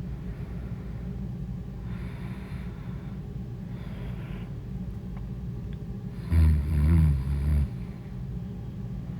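A sleeping person snoring: soft breaths every couple of seconds, then one loud, rough snore lasting about a second and a half about two-thirds of the way in. A steady low rumble runs underneath.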